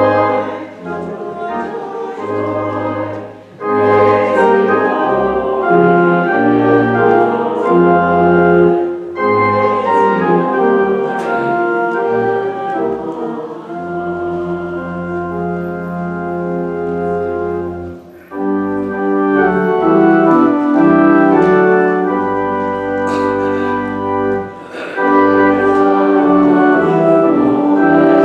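Organ playing a slow instrumental piece of held chords over long sustained bass notes, in phrases with brief pauses between them.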